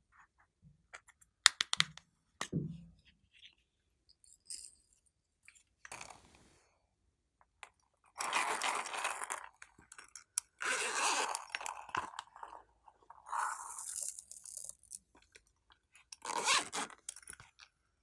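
Hands handling small plastic novelty cases and tipping beads and glitter into a glass tray of slime. A few sharp clicks and a knock come first, then several crunchy, scraping bursts of a second or two each.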